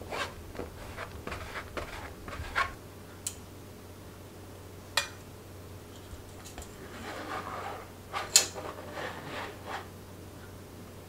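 Plastic scraper rubbing and scraping steamed sweet potato on a fine-mesh sieve, in short strokes, with a few sharp taps; the loudest tap comes about eight seconds in.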